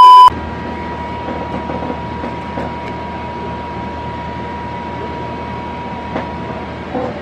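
A loud, steady electronic beep cuts off abruptly a third of a second in. After it comes a steady hum and hiss with a faint high whine, and a single soft click about six seconds in.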